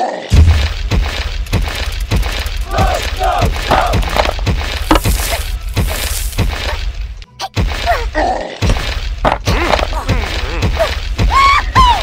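Background music with a heavy bass, over which come repeated thuds and crashing knocks and short wordless cartoon-style voice sounds.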